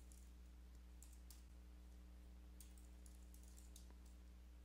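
Faint computer keyboard typing: a scattered handful of soft keystrokes over a low, steady electrical hum.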